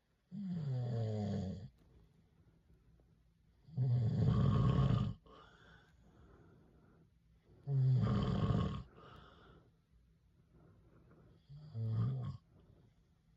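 A man snoring in his sleep: four low snores about four seconds apart, each a second or so long, with faint breathing between them.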